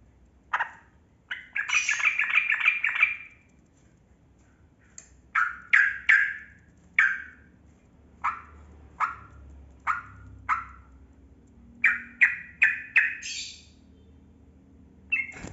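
Yellow-vented bulbul (trucukan) singing. A single short note comes first, then a bubbling, chattering phrase of almost two seconds. After that, short down-slurred notes follow about every half second to a second, and near the end a quick run of notes climbs in pitch.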